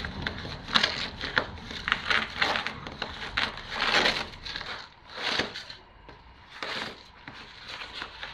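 Old, perished insulation wrapping being torn and stripped off a heating pipe: a run of irregular crackling, crumpling rips of brittle sheeting.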